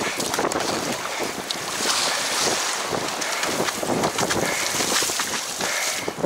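Wind buffeting the microphone over choppy water rushing and splashing against a surfski's hull as it runs downwind.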